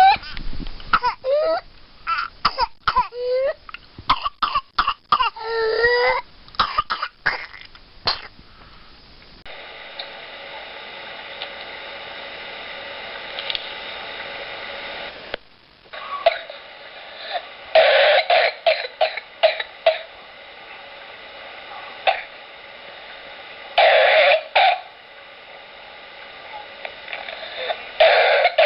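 Recorded coughing fits of pertussis (whooping cough) patients: fast strings of coughs in paroxysms. In the first several seconds high, sliding-pitch sounds come between the coughs. After a steady hum, more bursts of rapid coughing come about two-thirds of the way in, again near the three-quarter mark, and at the end.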